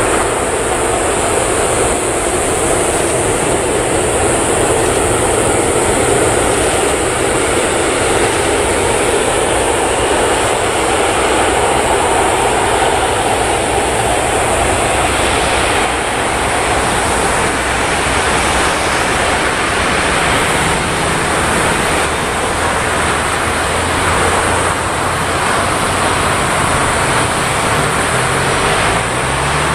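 Airbus A380's four Rolls-Royce Trent 900 jet engines running at taxi power: a steady, loud rush with a constant high whine and a low hum. Near the end a low tone rises in pitch.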